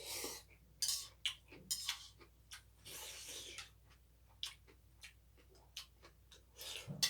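Close-up eating sounds: cutlery clicking against dishes amid chewing, in short irregular clicks and brief hissy mouth noises.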